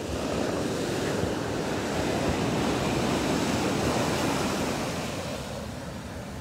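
Ocean surf: waves breaking and washing up the sand. The wash swells about half a second in, holds for a few seconds and fades near the end.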